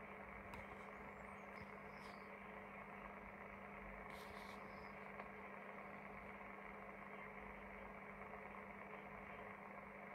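Faint steady hiss with a low hum: receiver band noise from a Maxlog CB radio's speaker while no station is transmitting.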